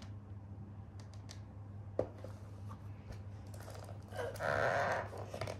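Cardboard packaging of a Braun trimmer being handled: a few light clicks and taps, a sharper knock about two seconds in, then about a second of scraping rustle a little after four seconds as the insert is worked into the box.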